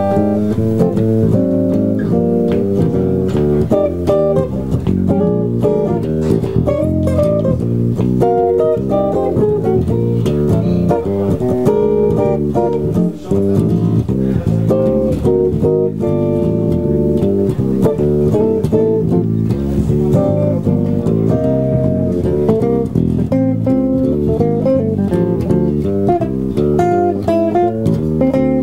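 A Gibson semi-hollow-body electric guitar and an electric bass playing together, a continuous instrumental passage of picked guitar lines over a bass line.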